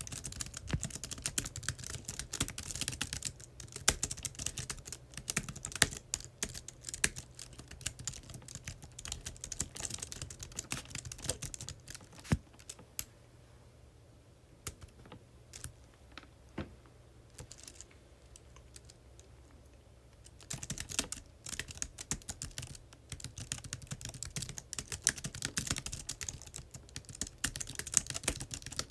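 Typing on a computer keyboard: a quick, dense run of key clicks that thins to a few scattered keystrokes for about eight seconds in the middle, then picks up into steady typing again.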